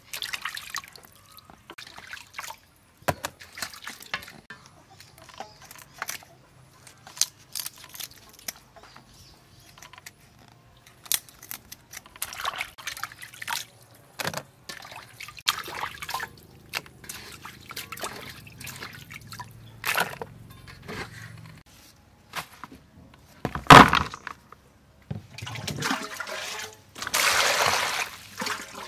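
Kitchen scissors snipping the antennae and legs off giant river prawns in a basin of water, with dripping and light splashing as the prawns are handled and dropped into a plastic colander. A single loud knock comes about two-thirds of the way in, and near the end water splashes as vegetables are swished in a basin.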